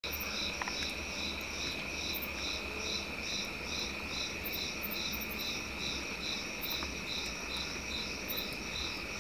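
Insects chirping in a steady rhythm, about three chirps a second, over a constant high-pitched drone.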